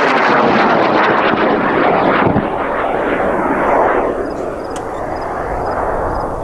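High-power rocket's solid composite-propellant motor burning as the rocket climbs after liftoff, a loud rough roar that eases off a little after about four seconds.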